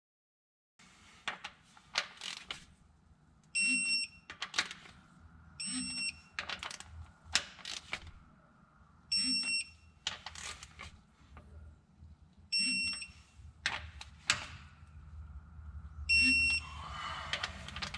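An electronic torque wrench gives five short beeps, each time a rocker arm shaft bolt reaches its set torque of 30 ft-lb. Between the beeps come sharp clicks and knocks of the wrench and socket on the bolts.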